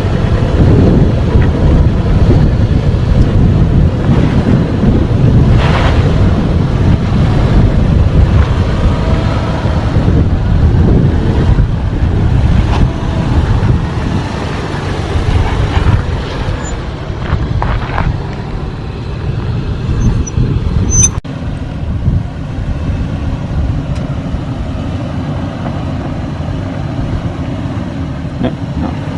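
Toyota 4Runner crawling over a rough off-road trail: a low, steady vehicle rumble with a few sharp knocks and clunks scattered through it. The rumble eases somewhat about halfway through.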